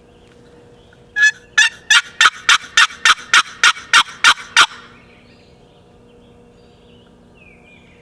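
A hunter's call sounded close by: a fast, even run of about a dozen loud, harsh notes, about three a second, lasting some three and a half seconds, sent out to draw a response from a gobbler.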